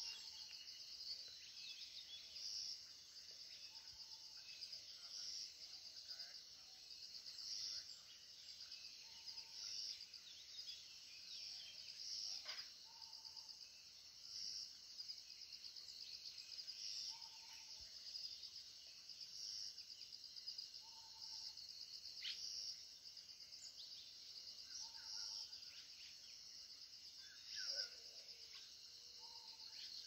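Faint outdoor insect chorus: a steady high trill that swells every couple of seconds. Short bird calls and a few brief whistles come in now and then.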